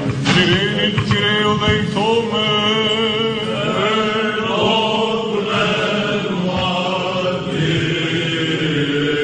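Greek Orthodox Byzantine liturgical chant: male voices singing a wavering, ornamented melody over a steadily held low note.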